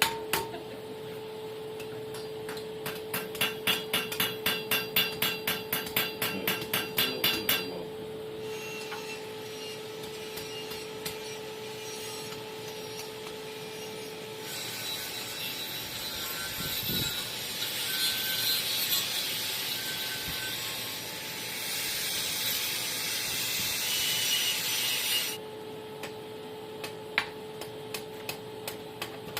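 Hammer strikes ringing on steel at the anvil, a quick run of about three blows a second for the first several seconds. Then a long rasping scrape of steel being worked by hand, loudest in the second half, over a steady hum.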